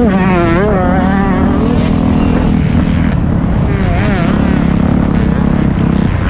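Motocross bike engine at speed on a dirt track, its pitch rising and falling as the throttle is worked, with quick swings in the first two seconds and again about four seconds in.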